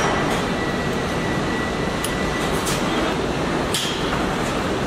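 Car assembly line factory floor: a steady din of machinery with a few short sharp metallic clicks, the clearest a little under four seconds in.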